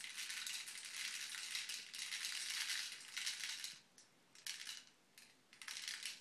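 Plastic airsoft BBs rattling inside a spring airsoft AK magazine as it is shaken upside down to feed BBs into its chamber. The shaking is continuous for about four seconds, then comes in a few short bursts near the end.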